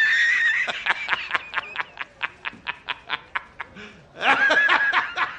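High-pitched cartoon-style snickering laugh sound effect: a drawn-out squeal, then a fast run of short wheezy pulses, about four a second, with another squeal about four seconds in.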